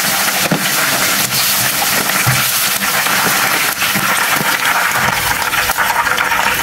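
Boneless chicken pieces in an egg and cornflour coating frying in hot oil: a steady sizzle with scattered crackles.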